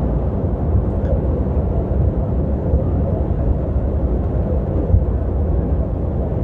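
Steady low rumble of a semi-truck's diesel engine and road noise, heard inside the cab while driving.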